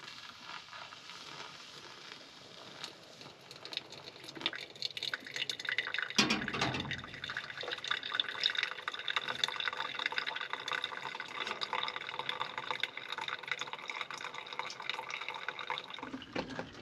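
Hot water poured from a kettle onto coffee grounds in a paper pour-over filter cone, with a louder splash about six seconds in, then the coffee trickling and dripping through the filter.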